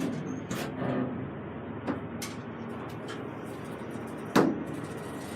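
Old Dover elevator car: a steady running noise with scattered sharp clicks and one loud clunk about four and a half seconds in.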